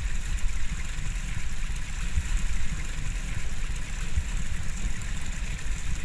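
Wind rumbling unevenly on the microphone outdoors, with a steady hiss over it.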